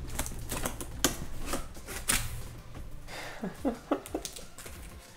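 Cardboard box being opened by hand: a series of sharp clicks and scrapes from the packing tape and cardboard flaps, with a few short squeaks as the flaps are bent back.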